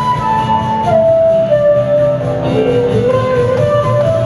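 Flute playing a melody of held notes over a live rock band's backing of guitar, bass and drums. The line steps downward and climbs again near the end.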